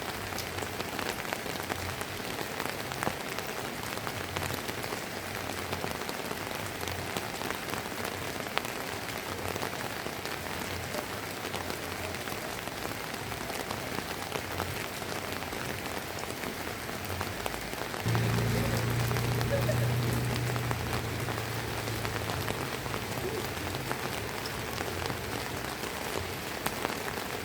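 Steady drizzling rain, a fine even patter of drops with scattered louder drips. About two-thirds of the way in a low humming rumble starts suddenly, is the loudest thing heard, and fades away over a few seconds.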